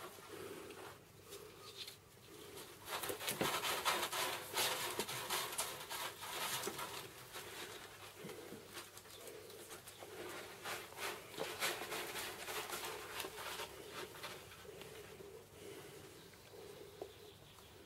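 Kittens scratching and rustling at close range, with many short soft clicks and scuffs and camera handling noise as the kittens move against the microphone.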